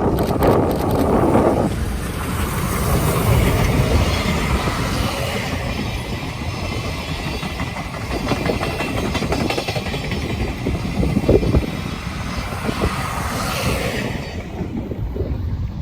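Passenger train of 12-series coaches hauled by steam locomotive C57 180 rolling past, its wheels clicking over the rail joints; the noise drops away near the end.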